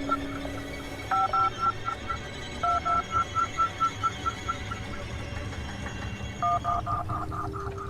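Telephone keypad touch-tones: short two-tone beeps in three groups, about a second in, near three seconds and about six and a half seconds in, each beep followed by several quickly fading repeats.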